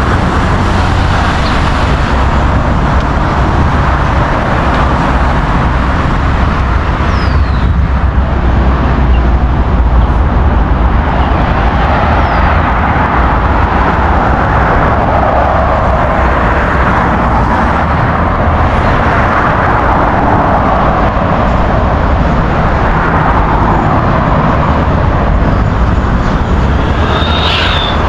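Steady road-traffic noise from cars driving past on a multi-lane road: a continuous low rumble with tyre hiss that swells a little in the middle.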